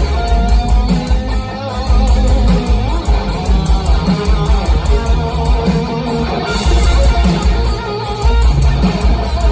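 Live rock band playing loud: a lead electric guitar solo with wavering, bending notes over bass guitar and drums with steady cymbal strokes, recorded from the audience.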